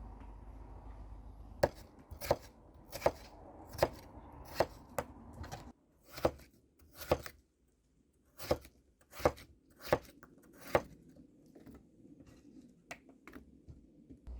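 Knife chopping food on a cutting board: about a dozen sharp strokes, a little under one a second, in two runs with a short break between them, then a few fainter taps near the end.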